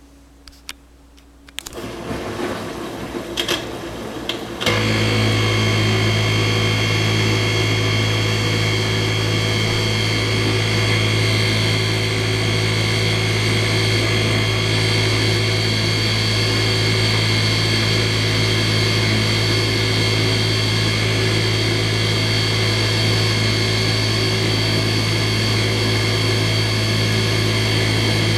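Dishwasher going from a quiet pause with a few clicks into its next cycle: irregular clattering starts about two seconds in, then about five seconds in a clunk and a loud, steady droning hum with a strong low tone takes over and runs on unchanged. This is the awful noise the owner complains of.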